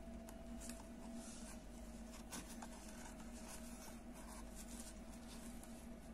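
Faint scratchy rustling of a crochet hook and yarn being pulled through the edge holes of a wooden bag side, over a faint steady hum.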